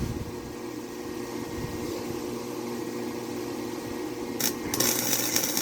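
Welding machine humming steadily; near the end the welding arc strikes with a brief hiss, then a loud crackling hiss for about a second, as of a short tack weld.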